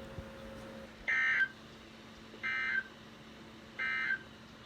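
EAS digital data bursts: the End of Message code sent three times, each a short buzzy modem-like screech, about a second and a half apart, over a faint steady hum.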